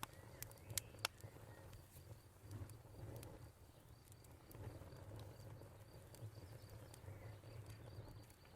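Wood fire crackling, with sharp pops, several in the first second or so and scattered after, over a low steady rumble. Crickets chirp in a steady, even pulse behind it.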